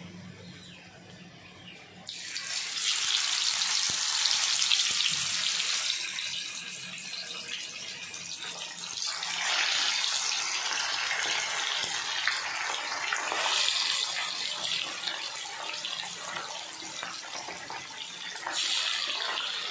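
Chili-marinated fish pieces sizzling in hot oil. A loud hiss flares up about two seconds in and swells again several times as more pieces go into the pan one by one.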